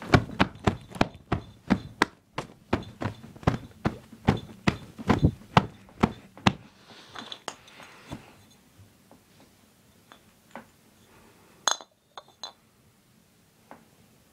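Glass bottles knocking and clinking against each other in quick, regular strikes, about three a second, for the first several seconds. Then come a few scattered knocks and one sharper, ringing clink later on.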